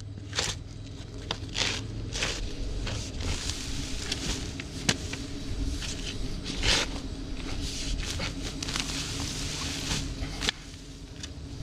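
Irregular scraping and crackling of soil and dry potato vines being dug through by hand, with footsteps, over a steady low hum.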